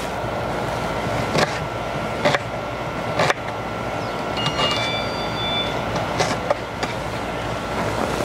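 Knife cutting an onion, with three sharp taps in the first few seconds, over a steady background noise.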